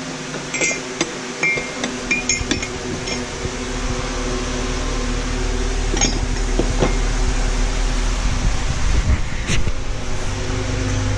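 Ceramic dishes clinking and knocking together as they are handled and picked up, with several short ringing clinks in the first few seconds and a few more later. A steady mechanical hum runs underneath.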